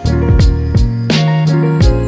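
Background music: a drum beat over held bass and chord notes.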